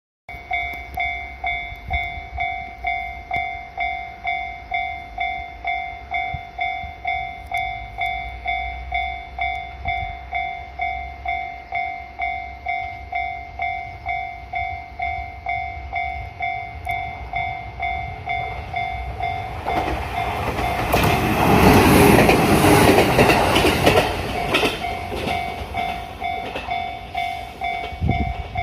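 Japanese level crossing's electronic warning bell ringing in a steady repeating ding, about two strokes a second. About two-thirds of the way in a train passes over the crossing, its rumble and wheel clatter swelling to the loudest point and easing off while the bell keeps ringing.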